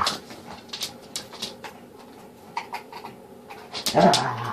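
A Jack Russell–Shih Tzu mix puppy and a Golden Retriever–Husky mix play fighting: scattered light clicks and scuffles, then a short low growl about four seconds in.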